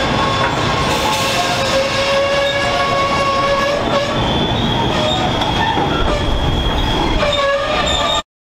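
Loaded NHFF coal hopper wagons rolling past on steel rails, with the wheels squealing in several thin, wavering high tones over a steady rumble. The sound cuts off suddenly near the end.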